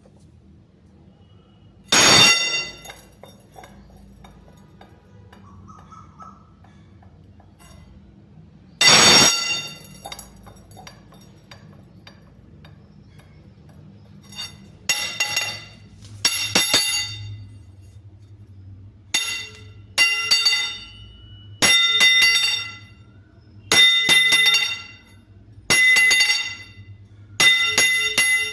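Steel rods struck against metal, each hit ringing out with a clear metallic tone. Two heavy hits come in the first ten seconds, then a run of ringing strikes every second or two through the second half.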